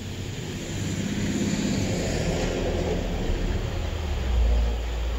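A box truck passing on the road: a steady rumble of engine and tyre noise, with the low rumble growing louder near the end.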